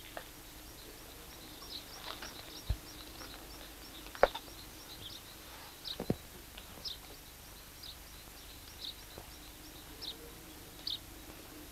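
Small birds chirping outdoors, short high chirps about once or twice a second, over a faint steady background hiss. A few sharp isolated knocks cut in, the loudest about four seconds in.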